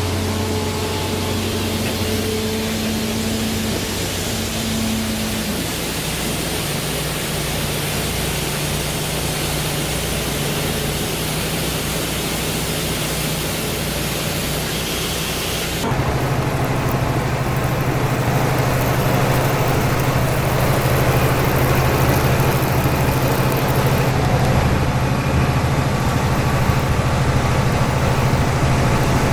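Fendt 933 Vario tractor's diesel engine running steadily under wind noise on the microphone. About halfway through, the sound switches abruptly to a slightly louder, steadier engine hum.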